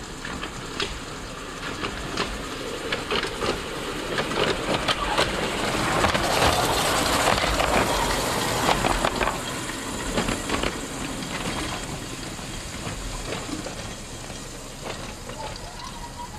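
Quarter-scale model streetcar running past on its track: wheels rumbling and clicking over the rail joints, growing louder as it comes close about halfway through, then fading as it rolls away.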